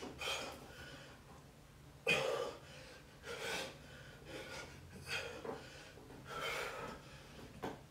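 A man breathing hard through butterfly sit-ups, a short gasping exhale with each rep, about one a second; the loudest is about two seconds in.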